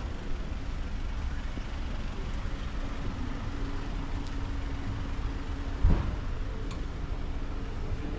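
Street ambience with a motor vehicle running close by: a steady low rumble, with a steady hum joining after a couple of seconds. A single thump about six seconds in is the loudest sound.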